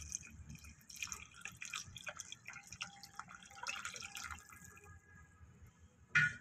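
Milk being poured into an aluminium pot of carrot pieces, splashing and trickling faintly, tapering off about four and a half seconds in. A brief sharp clink near the end.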